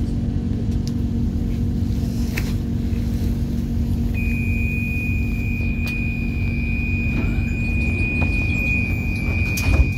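Metro train door-closing warning: one long steady high beep starts about four seconds in and holds for about six seconds while the sliding doors close, shutting with a loud knock near the end. The stationary train's steady low hum sounds underneath.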